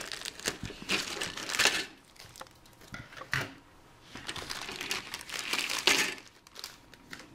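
Thin clear plastic bag crinkling and rustling in bursts as plastic model-kit parts trees are pulled out of it by hand, with one short knock midway through.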